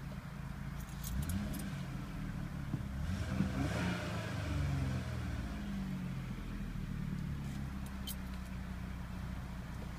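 2000 Toyota Avalon XLS's 3.0-litre V6 running at a high warm idle, over 1,000 rpm, with a multiple-cylinder misfire that sets the car shaking. A few seconds in, the pitch rises and falls.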